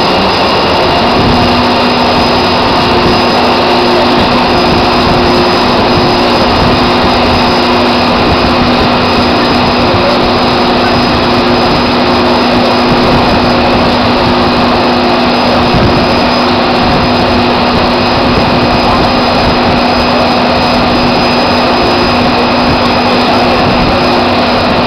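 Drilling rig machinery running with a loud, steady roar while pipe is pulled out of the hole, with a steady hum that comes in about a second in.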